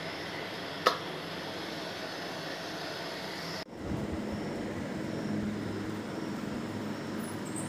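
Steady background hiss and rumble, with one sharp click about a second in. A few seconds in the background changes abruptly to a lower, humming noise.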